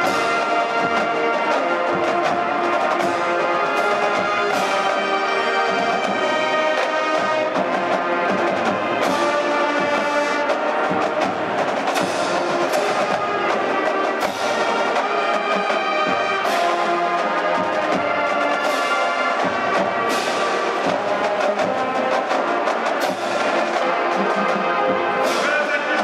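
College marching band playing, brass holding full sustained chords with percussion hits every few seconds.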